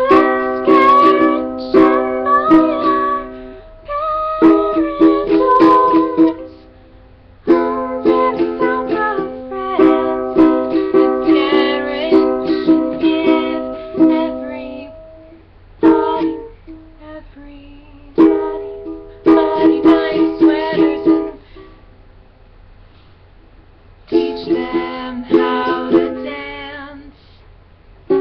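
Ukulele strummed by a beginner, in short phrases of chords that stop and start again with gaps of a second or two between them.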